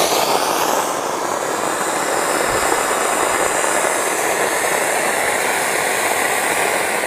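Anar (flowerpot) fountain fireworks burning, a steady rushing hiss of spraying sparks.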